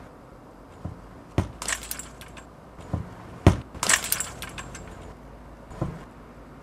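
A football being kicked and bounced: a string of irregular sharp knocks, about six, the loudest about three and a half seconds in, some with a bright clinking ring.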